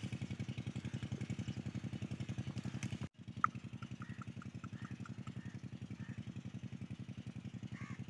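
A small engine running steadily in the background: a low, rapid, even thudding at about nine beats a second, with a brief dropout about three seconds in. A few short bird chirps follow the dropout.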